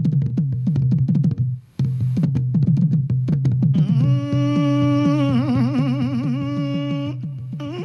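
Background music: a fast run of short, falling plucked or percussive notes over a low steady drone. About four seconds in, a long held note joins and wavers in pitch for a while in the middle.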